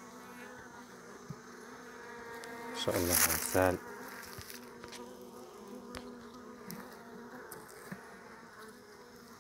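Honeybees humming steadily in an opened hive, with a brief louder sound about three seconds in.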